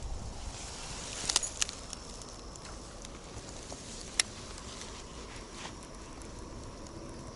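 Outdoor ambience with a faint, steady high-pitched insect buzz and a few sharp clicks: a quick cluster about a second in and a single louder click a few seconds later.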